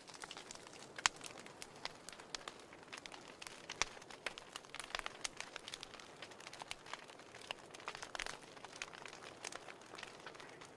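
Wood fire burning in a fireplace: a steady soft hiss with irregular crackles and pops, the sharpest about a second in and around four and eight seconds in.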